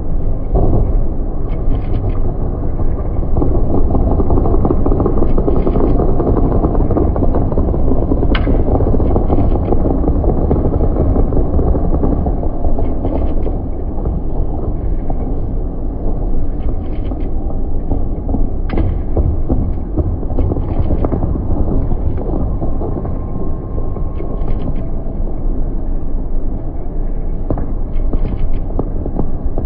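Fireworks display: a continuous heavy rumble of bursting shells, with scattered sharp cracks standing out now and then.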